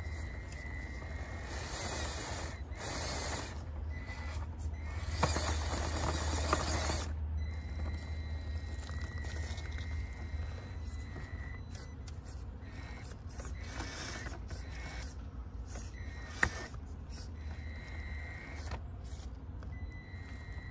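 Traxxas TRX-4M micro crawler driving over rocks: a thin electric-motor and gear whine that rises and drops as the throttle comes and goes, with tyres scraping on stone and a few sharp knocks.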